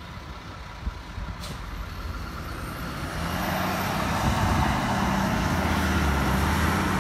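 A heavy vehicle's engine running, its low drone growing steadily louder as it approaches, strongest from about three seconds in.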